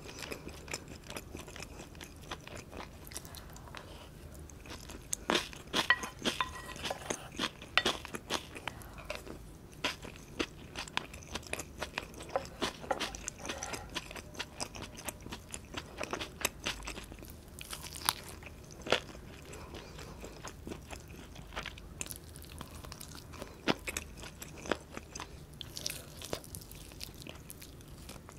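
Close-miked chewing and biting of honey-roasted chicken drumstick and fried instant noodles, with many short sharp clicks of bites and mouth sounds, thickest a few seconds in.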